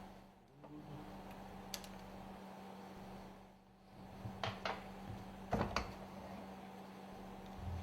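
Small clicks and taps of metal parts being handled as the solenoid valve of an Alpha cylinder lubricator is taken apart: a few single clicks in the second half and one near the end, over a steady low hum.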